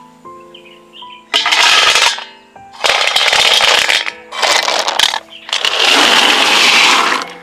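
Small fired clay movable-type blocks clattering together in a bowl as they are stirred and poured, in four loud rattling bursts, the last one the longest.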